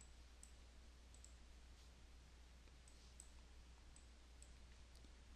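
Faint computer mouse clicks, a scattered series of single and paired clicks, over near silence with a low steady electrical hum.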